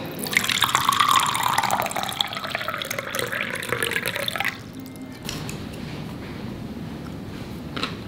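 Water poured from a glass carafe into a glass tumbler: a steady splashing stream with a tone that slides down as the glass fills. It stops about four and a half seconds in.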